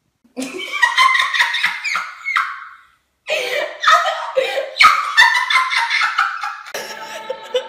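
A woman wailing and sobbing in high cries that stop about two and a half seconds in. After a short silence, a girl giggles and makes odd vocal noises, and music starts near the end.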